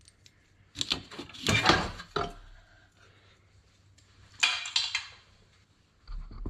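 Metal clanking and rattling in a few short bursts as a truck's battery tray is worked loose and pulled out of the engine bay.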